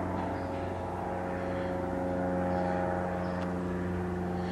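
A steady low hum with several even overtones and a faint higher whine above it; it does not change in level or pitch.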